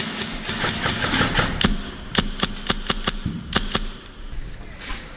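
Airsoft guns firing: a quick, irregular string of sharp pops for about two seconds, then single shots every fraction of a second that die out near the end.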